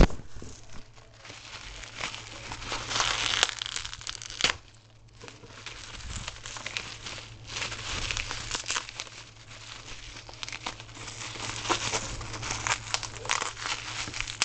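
Plastic bubble wrap being handled and pulled open by hand, an irregular run of crinkling and crackling with a short lull about five seconds in.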